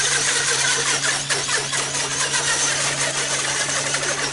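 Basher BSR 4WD rally RC car running at speed across water: a steady high electric-motor whine mixed with a hissing spray of water from its wheels.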